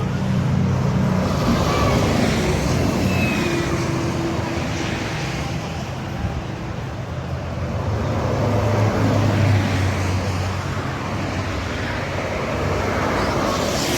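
Toll-road traffic passing, with the low drone of heavy vehicle engines and tyre noise; one vehicle passes loudest about nine seconds in.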